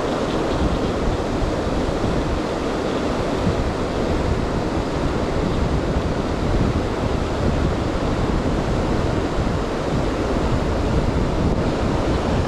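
Steady rush of river water: a dense, even noise with no breaks, strongest in the low and middle range.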